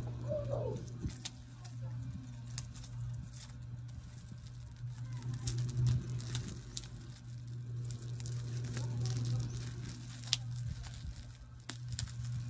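Scissors cutting and tearing the tight plastic wrap on a bale, with irregular sharp snips and crinkling of the film, over a steady low hum.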